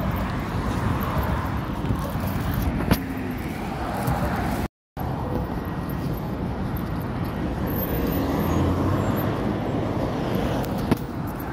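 Road traffic on a busy multi-lane road, cars driving past close by in a steady wash of engine and tyre noise. The sound cuts out completely for a moment about five seconds in.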